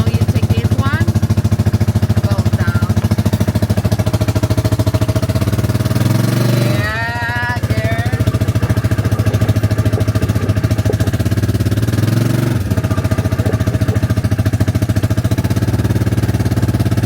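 A small vehicle under way, giving a steady low drone with a fast, even pulsing. About six seconds in, a brief wavering high-pitched cry rises and falls over it.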